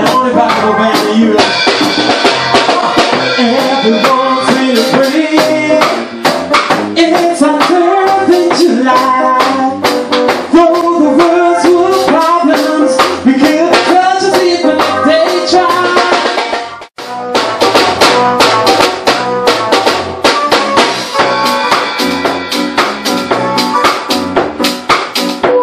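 Live band playing with a drum kit, electric bass guitar and keyboard, keeping a steady beat. The sound drops out for an instant about two-thirds of the way through.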